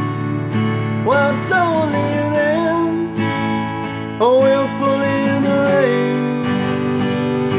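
Strummed all-mahogany acoustic guitar, a Tanglewood Crossroads Orchestra, playing a blues-style song accompaniment, with a wordless sung vocal line sliding into long held notes about a second in and again about four seconds in.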